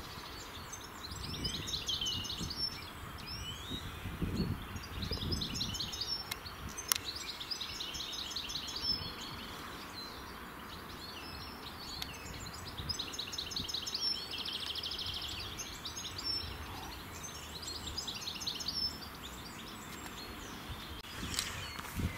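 Songbirds singing around a pond: rapid trilling phrases of a second or two, repeated every couple of seconds, over a low background rumble.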